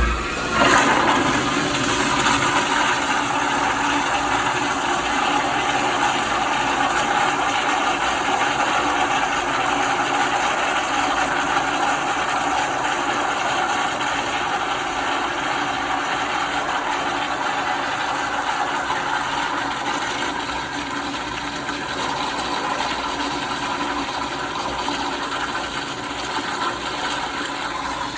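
Late-1990s Kohler Kingston 1.6 gpf toilet in a long flush: a sudden start, then a steady rush of water that eases slightly after about twenty seconds.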